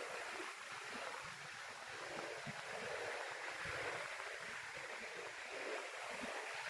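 A steady rushing noise like flowing water or surf, with uneven low rumbles underneath.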